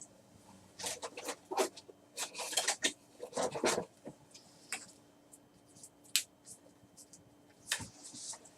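Trading cards and packs being handled: short papery rustles and scrapes as cards slide against each other, with a few light clicks later on.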